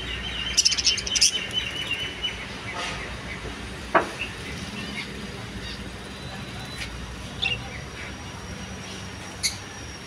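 Budgerigars chirping: short, scattered high calls, with a quick run of chatter about half a second in and a sharp, louder note about four seconds in.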